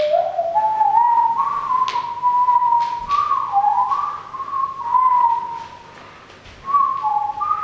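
A person whistling a slow unaccompanied tune, the notes sliding from one to the next, with a short pause near the end.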